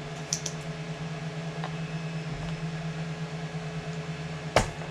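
Spring-loaded solder sucker (desoldering pump) fired once near the end: a single sharp snap as its plunger releases, over a steady low electrical hum.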